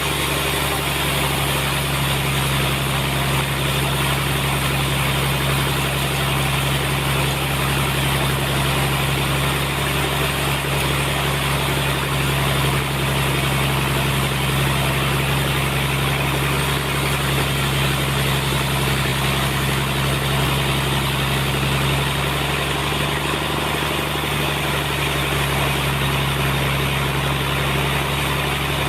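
Sawmill machinery running steadily: a constant low hum under an even mechanical noise, with no pauses or changes.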